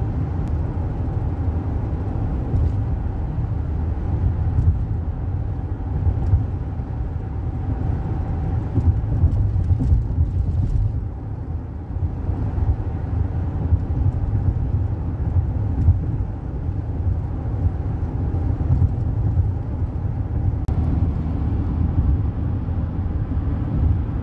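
Steady low rumble of a car driving along the road, tyre and engine noise.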